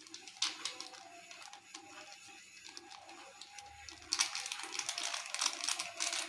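Foil seasoning sachet crinkling and being tapped as masala powder is shaken out over a pot of noodles, with scattered light clicks and a quick run of crinkling and tapping about four seconds in.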